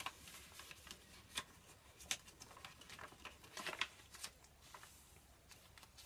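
Paper pages of a handmade junk journal being turned and handled: faint scattered rustles and flicks of paper, with a few sharper ones.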